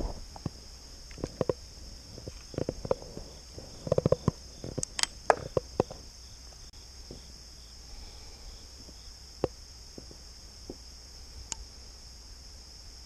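A steady, high-pitched chorus of insects. Over it, in the first half, comes an irregular run of sharp clicks and knocks, the loudest about five seconds in; a few single taps follow later.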